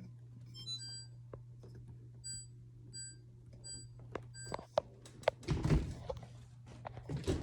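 Dishwasher electronic control panel beeping: a quick run of tones of varying pitch, then five single beeps about two-thirds of a second apart. A few sharp clicks and knocks follow, over a steady low hum.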